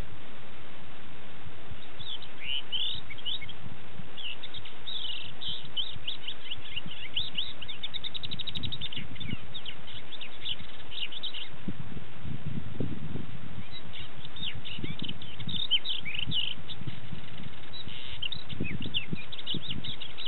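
A lark singing: a rapid, jumbled run of high chirps and whistles in two long bouts, with a fast even trill about eight seconds in and a pause of a couple of seconds in the middle. Low rumbles come and go underneath, over a steady hiss.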